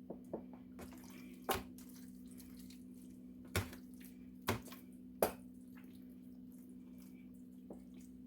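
Wet squishing and smacking of hands rubbing seasoning paste into raw chicken, with a few sharper squelches. A steady low hum runs underneath.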